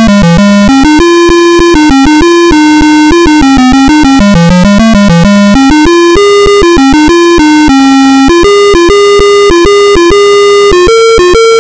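Apple II's one-bit speaker playing a loud, buzzy square-wave melody, one note at a time, with short clicks between the notes.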